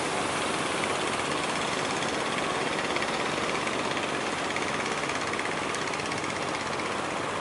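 A fishing boat's inboard engine running with a fast, even knocking, heard over a steady wash of sea and surf.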